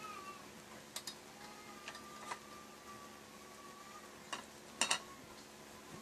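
Kettle packed with sawdust heated for pyrolysis: a thin, wavering whistle, one tone held for about two seconds, with a few sharp clicks, a double click near the end being the loudest.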